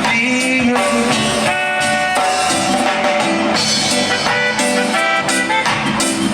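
Band music from a love song, in an instrumental stretch between sung lines.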